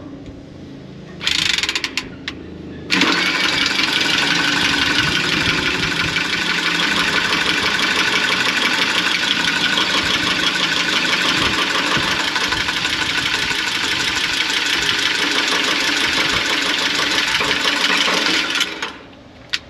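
Cordless power cutting tool cutting through the copper refrigerant suction line at the compressor: a brief first try about a second in, then a steady harsh cutting run until it stops shortly before the end.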